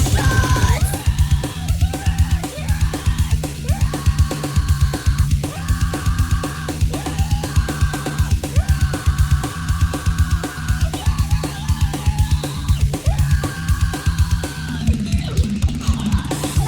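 Instrumental heavy rock music: a fast, driving drum-kit beat with bass drum and cymbals over a thick, sustained bass and guitar backing.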